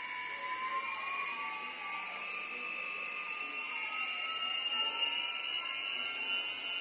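Four unloaded 5008 brushless drone motors spinning on a 4-in-1 ESC, making a high-pitched electric whine of several close tones. The main tone rises slightly over the first two seconds and then holds, while fainter tones dip and rise again.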